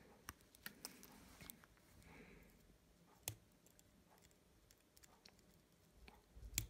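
Faint scattered clicks and taps of small parts and scissors being handled, with a sharper click a little past three seconds and a click with a dull bump near the end.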